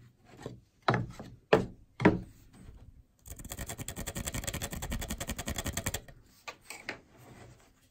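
A few short wooden knocks as pine shelf boards are handled on the bench, then a pencil scribbling a mark on the pine beside a domino mortise: a rapid back-and-forth scratching that lasts about three seconds.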